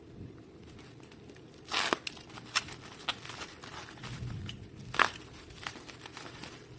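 Parcel packaging being opened by hand: crinkling and tearing, with a short burst of crackling about two seconds in and a sharp crackle near five seconds.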